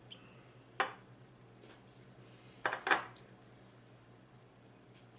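Tableware and takeout food containers being handled at a meal: a sharp click about a second in, then a short cluster of knocks and clinks near the middle.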